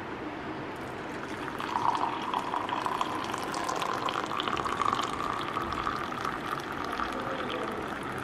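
Freshly boiled water poured from a collapsible silicone electric travel kettle into a ceramic mug with a tea bag. The pour starts about a second and a half in, and its pitch rises slowly as the mug fills.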